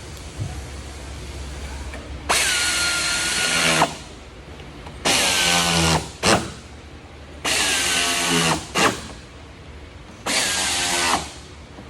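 Power drill run in four bursts of about a second each, with two quick blips between them. The motor whine winds down at the end of each burst.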